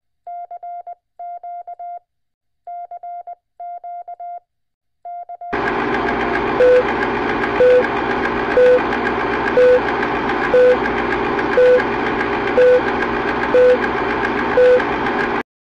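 Morse code sent as a single steady tone, keyed in quick groups of dots and dashes for about five seconds. Then a film countdown-leader sound effect starts: a dense projector-style rattle with a short beep once a second, nine beeps, cutting off suddenly near the end.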